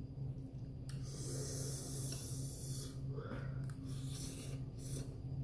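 A man's heavy, noisy breathing and sniffing against the burn of very spicy instant noodles, with one long breath starting about a second in, then a slurp as he sucks up a forkful of noodles. A low steady hum runs underneath.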